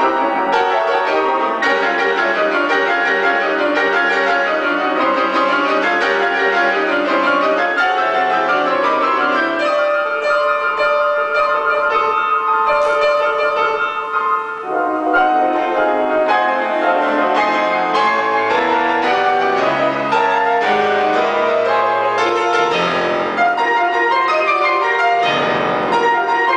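Grand piano played four hands by two pianists at one keyboard, with dense chords and fast-moving figures that run on without a break.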